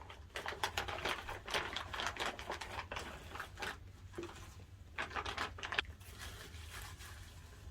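Plastic packaging crinkling and rustling as it is handled and opened, with short irregular crackles in two spells, the second about five seconds in.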